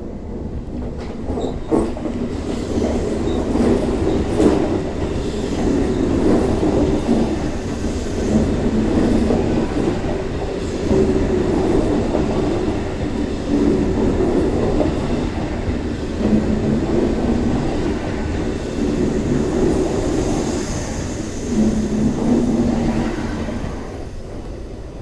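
CR400BF-G Fuxing high-speed electric multiple unit departing through station-throat pointwork: a continuous rumble of wheels on rail, with clicks and clatter as the wheels cross switches and joints. A high wheel squeal comes in around twenty seconds in. The sound fades in the last second or so.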